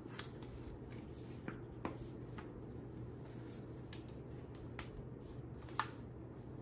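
Faint handling noise from a folding four-panel solar power bank being folded shut: scattered light clicks and rustles over a low steady hum, the sharpest click near the end.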